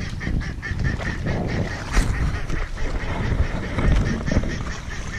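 Ducks calling repeatedly, with water sloshing as someone wades through the shallows in boots; a sharp knock about two seconds in.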